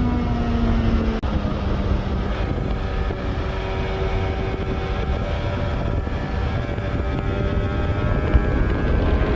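Yamaha RZ350's two-stroke parallel-twin engine running steadily. Its pitch drops about a second in, holds, then starts to rise again near the end.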